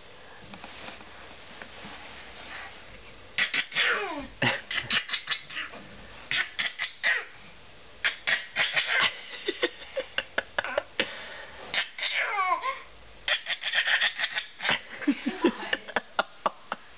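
Young child making a vocal machine-gun noise: runs of rapid, sharp, staccato bursts starting about three seconds in, mixed with laughing and a few squeals that slide down in pitch.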